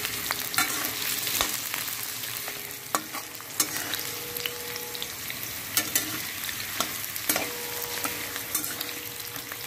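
Potato cubes sizzling in hot mustard oil in a kadai, stirred with a metal spatula that clicks and scrapes against the pan now and then.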